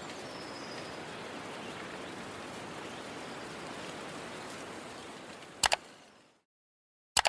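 Steady outdoor background noise, an even hiss like running water or wind, that fades out about six seconds in. Two short, sharp clicks come near the end.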